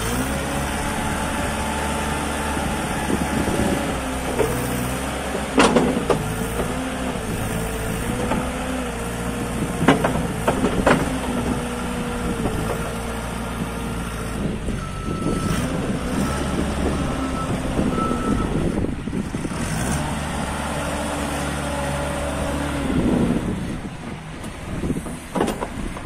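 Diesel engine of a 2008 JCB Midi CX compact backhoe loader running while the machine is driven, its note stepping up and down, with a few sharp knocks along the way. A high beeping tone sounds for a few seconds midway.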